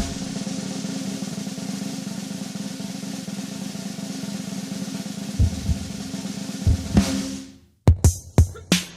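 Music: a sustained snare drum roll with a few bass drum hits under it near the end, cutting off suddenly, then a punchy drum beat starting just before the end.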